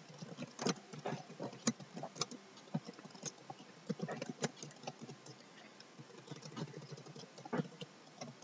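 Typing on a computer keyboard: irregular key clicks with short pauses between runs of keystrokes.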